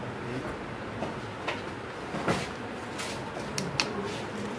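A few light knocks and clicks of objects being handled, over steady faint room noise.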